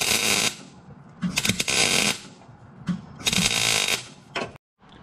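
MIG welder arc crackling in three short bursts of under a second each, with pauses between: tack welds on thin car-body sheet metal with .035 wire, pulsed so as not to burn through.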